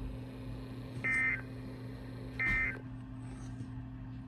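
Emergency Alert System end-of-message data tones: two short warbling digital bursts about a second and a half apart, over a steady low hum. They mark the end of the alert broadcast.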